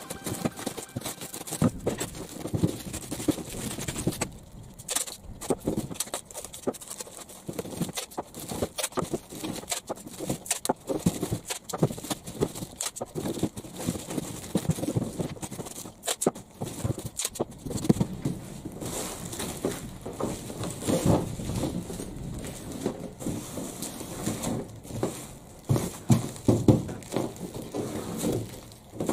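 Clear plastic stretch film pulled off a roll and wrapped around a cardboard box, crinkling and crackling irregularly as the box is handled and turned.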